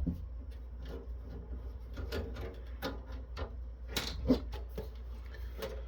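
Irregular small clicks and taps from a hand screwdriver backing screws out of a metal network-switch case, with a sharper tap about four seconds in. A steady low hum runs underneath.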